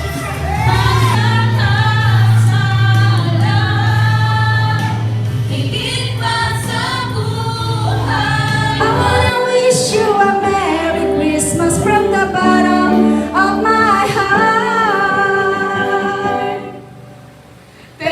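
Music with singing voices over a held low accompaniment note, fading out near the end.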